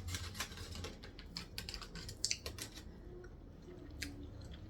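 Plastic food containers and packaging being handled, making a run of irregular light clicks and taps over a low steady hum.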